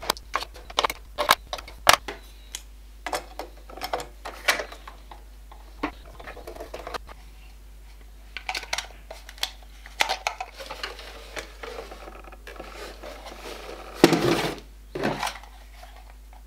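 Plastic clicking and rattling as AA batteries are pressed into a toy RC car's battery compartment and a 9-volt battery is fitted into its hand-held controller. There are many short, sharp clicks, and a louder clatter about fourteen seconds in.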